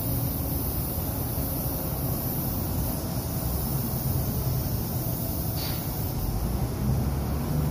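Steady low rumble and high hiss from a spray paint booth's ventilation fans running while a spray gun sprays paint.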